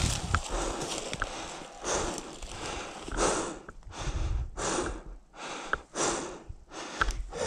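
A person breathing hard and fast, panting in and out about once a second, as after exertion.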